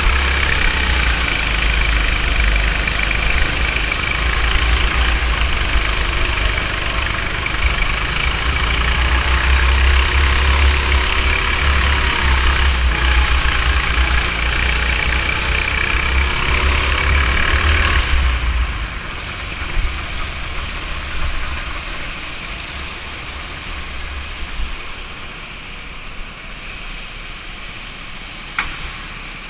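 Go-kart engine running at speed, heard from the kart itself, with wind buffeting the microphone. About eighteen seconds in, the rumble drops away and everything quietens as the kart slows.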